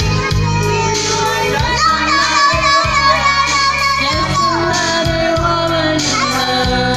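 Karaoke backing music playing, with a small child singing along into a handheld microphone.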